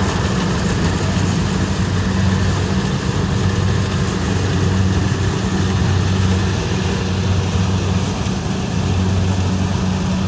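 Kubota rice combine harvester running steadily: its diesel engine holds a constant low drone over a broad mechanical rush.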